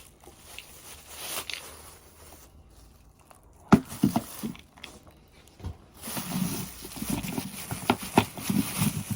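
Handling noises while unpacking a gift box: scattered knocks and clatter, the sharpest about four seconds in, then rustling and crinkling with more knocks from about six seconds in.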